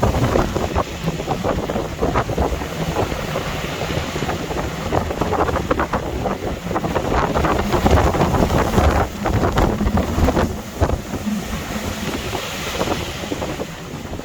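Storm-force wind gusting and buffeting the microphone in loud rumbling blasts, with the rush of rough sea underneath.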